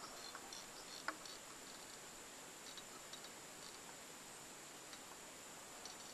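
Quiet hiss with scattered faint high chirps and one sharp click about a second in, from a screwdriver seating a small screw in a Honda 8 hp outboard's carburetor.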